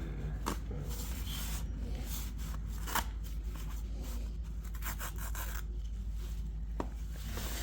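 Hand tools and parts scraping and rubbing under a car during oil-drain-plug work, with a few sharp clicks about half a second, three seconds and nearly seven seconds in, over a steady low hum.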